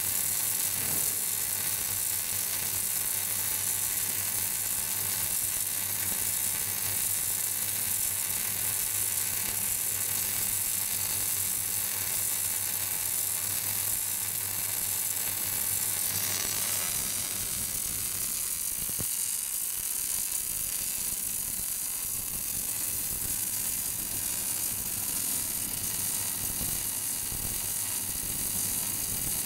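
Automatic MIG welding arc sizzling and crackling steadily as it lays the root pass on a pipe joint. A low steady hum underneath stops a little over halfway through.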